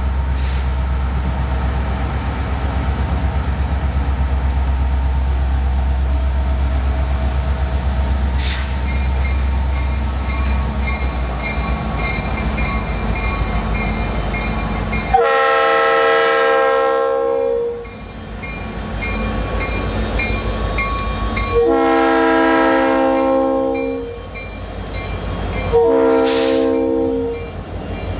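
Norfolk Southern EMD SD60 and SD70M diesel locomotives passing close with a steady deep engine rumble, hauling a long loaded freight. About halfway through, the lead unit's air horn sounds two long blasts and then a short one, the opening of the standard grade-crossing signal.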